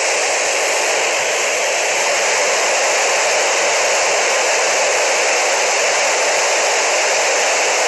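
Loud, steady static hiss from a ham radio receiver with no signal coming through, heard between transmissions from the ISS. It starts and stops abruptly, the way an FM radio's open squelch sounds.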